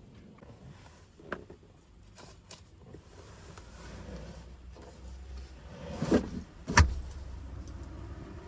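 Knocks and bumps of a hinged wooden sleeping platform being folded and stowed in a car boot, a few light taps early on and two louder knocks close together near the end.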